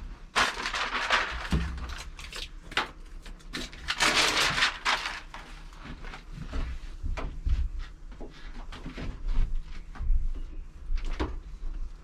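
Sheets of self-adhesive sound-deadening mat being handled and pressed onto the bare metal panels inside a van: two longer stretches of noisy rustling, one near the start and one about four seconds in, among scattered knocks and taps on the panels.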